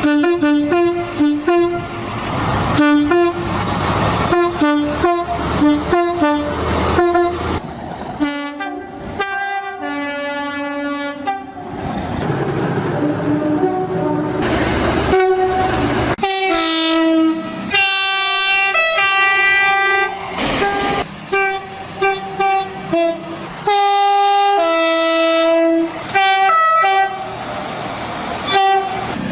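Train horns sounding over the rumble of passing trains: many are two-tone horns giving alternating high and low notes, some as quick short toots in succession and others as longer held blasts.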